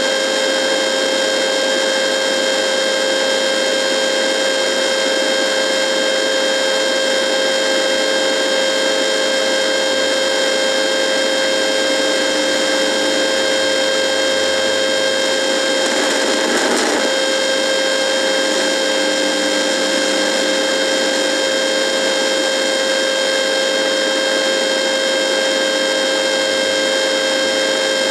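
Radio buzzing: a steady electrical buzz with one strong tone and many higher overtones over a hiss of static, with a short burst of crackle about halfway through.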